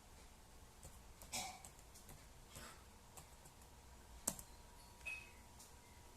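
A few faint, scattered clicks and taps of hands working on a laptop, with one sharper click about four seconds in.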